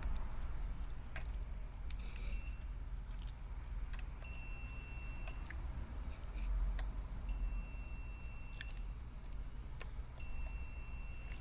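Multimeter continuity beeper sounding three times, each beep high-pitched, steady and about a second long, with brief blips and sharp clicks between as the probes touch points on the ECU circuit board while it is checked for a short.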